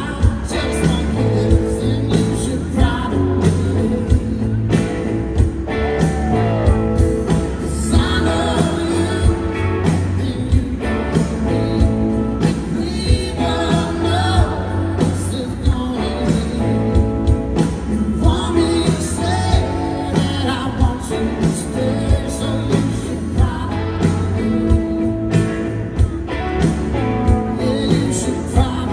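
Live country band performance through a PA: a male lead vocal over electric guitar, bass and drums, with a steady beat.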